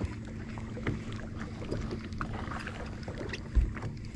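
Fishing boat at sea: a steady low hum with a constant tone and the wash of water, scattered small knocks and clicks, and one short heavy low thump about three and a half seconds in.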